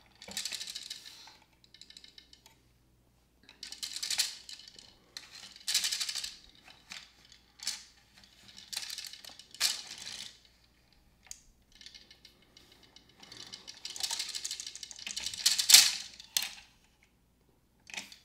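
Plastic gears of a Downspin game clicking in short runs as a key winds them round, with small plastic tokens rattling and dropping through them. The runs come every second or two, the loudest about two seconds before the end.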